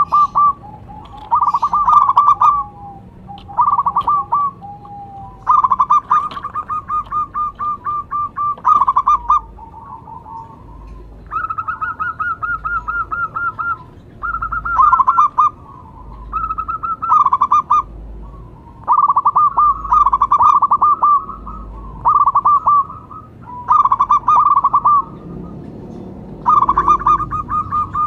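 Zebra dove (perkutut) song: phrase after phrase of quick, rolling coo notes, with short pauses between them and a few longer runs.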